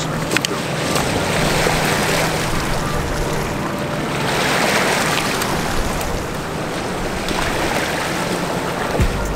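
Wind rushing over the microphone and water washing at a riverbank, as a steady noise that swells in the middle and eases again, with a few faint clicks.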